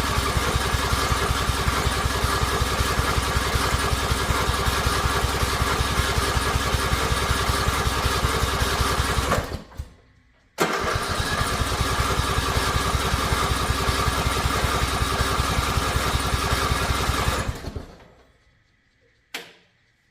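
Riding lawn mower's engine cranked by its electric starter in two long attempts, about nine and seven seconds, with a short break between. Each time it turns over without catching, so it won't start, and it winds down as soon as the key is let go. One sharp click near the end.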